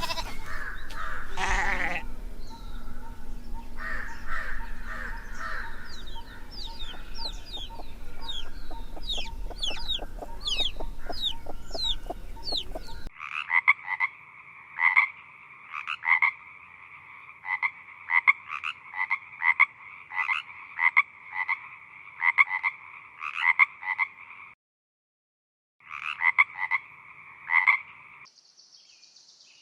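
Farmyard ambience of chickens and many short chirping bird calls for about the first half, then a sudden change to a frog croaking over and over in a steady string of calls, with one short pause near the end.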